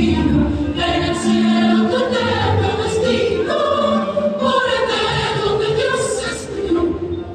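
A song sung by a group of voices, like a choir, with music accompanying.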